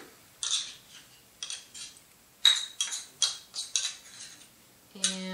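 Utensil scraping thick tahini out of a metal measuring cup into a blender jar: a string of short, irregular scrapes and clinks of metal on metal.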